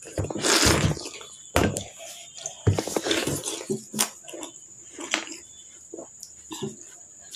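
Mouth noises of someone eating juicy watermelon straight off a plate without using her hands: noisy slurps and breaths, the loudest about half a second in and again around three seconds, with small sharp clicks of biting and chewing between them.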